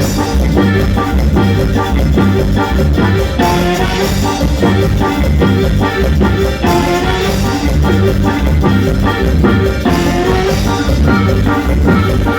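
Latin dance music with a steady, regular beat.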